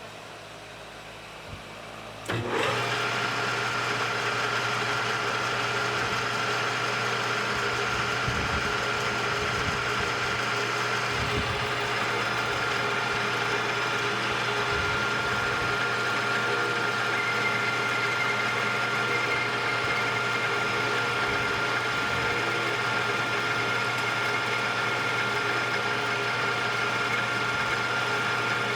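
Metal lathe switched on about two seconds in and running steadily through a turning pass, its motor and spindle giving a steady whine over a mechanical hum.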